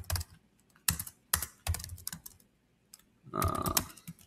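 Typing on a computer keyboard: irregular clusters of keystroke clicks, with a short hum about three seconds in.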